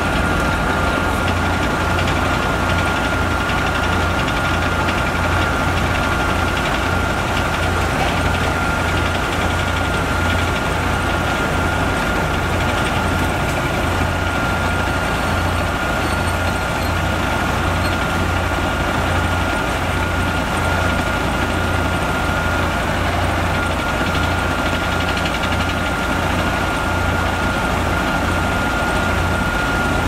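Heavy diesel road-paving machinery running steadily at a constant speed, with a steady high-pitched whine over the low engine rumble.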